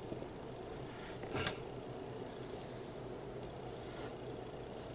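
Baseball trading cards being handled and slid against one another: a few short, soft rubs and a light click about a second and a half in, over a faint steady hum.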